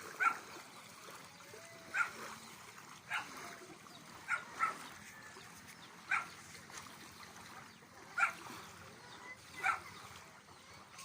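A dog barking, single short barks at uneven intervals about one to two seconds apart, with two in quick succession near the middle.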